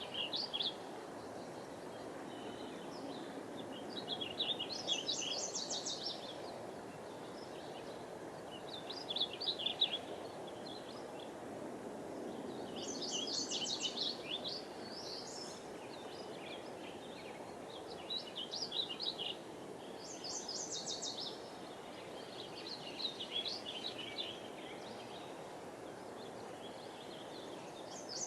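Birds singing over the steady rush of a river: short bright song phrases come every few seconds above the constant low noise of the flowing water.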